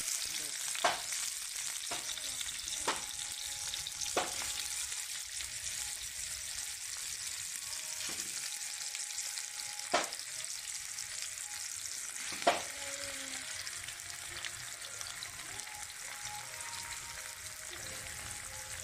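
Sliced hotdogs frying in hot cooking oil in a pan: a steady sizzle, with a handful of sharp clicks scattered through it, the loudest two about ten and twelve and a half seconds in.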